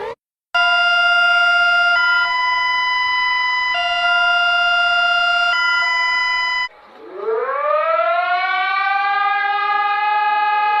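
Emergency alarm sounds: a steady electronic alarm alternating between two chord-like tones every couple of seconds, then a siren winding up from a low pitch and levelling off into a steady held tone.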